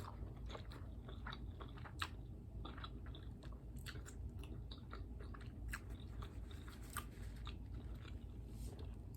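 Close-up chewing and biting of a taco, with irregular crunches and small wet mouth clicks.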